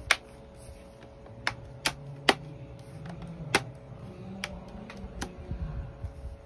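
Plastic snap clips of an HP Pavilion 14 laptop's case clicking one after another as the case edge is squeezed between the fingers: about seven sharp, irregularly spaced clicks.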